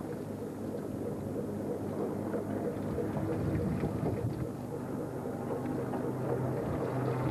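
Fishing boat's engine running with a steady low hum, under a constant rush of sea and wind noise.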